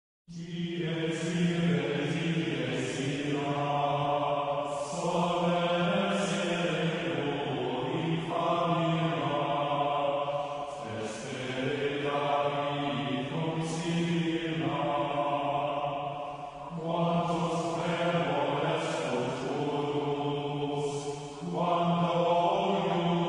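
Chant sung in Latin as background music: long phrases of a few seconds each over a steady low note.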